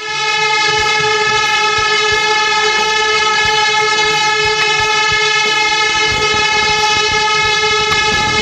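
A horn sounding one long, steady, loud note that starts suddenly, over a low rumble.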